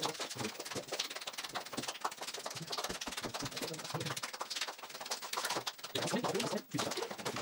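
Children's hand-clapping game: many quick, irregular claps, with children's voices mixed in.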